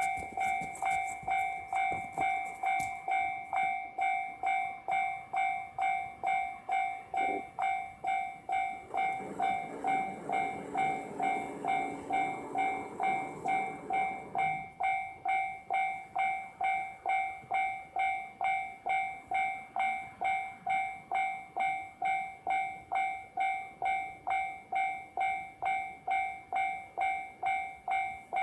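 Japanese level-crossing warning bell ringing in a steady, even rhythm of just under two strokes a second. From about 9 to 14 seconds in, a JR Hokkaido H100 DECMO diesel-electric railcar passes with a rumble beneath the bell.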